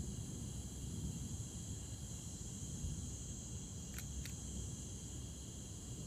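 Steady high-pitched night insect chorus, the continuous trilling of crickets, over a low constant background noise, with two short clicks about four seconds in.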